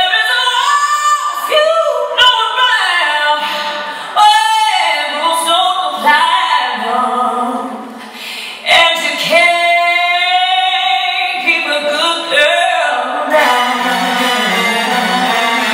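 A woman singing a song with long held notes and a wide vibrato, over sparse accompaniment; a fuller musical backing comes in near the end.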